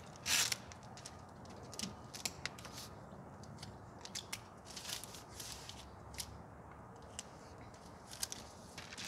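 Brown masking paper and masking tape handled over a door's glass: scattered short crinkles and rustles as the paper and tape are pressed down by hand, the loudest about a third of a second in.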